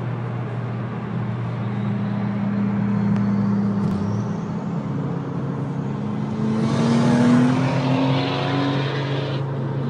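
Car engine droning steadily, heard from inside the cabin at highway speed. In the second half its pitch climbs gradually as the car accelerates. A loud rushing noise swells about seven seconds in and falls away near the end.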